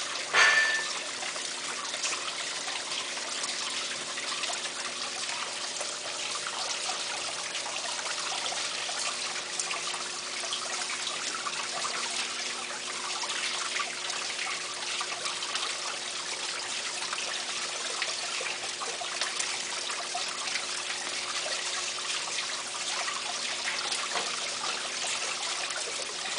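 Coolant water running steadily with a trickling hiss and a faint steady hum under it. About half a second in there is a short, ringing knock, the loudest moment.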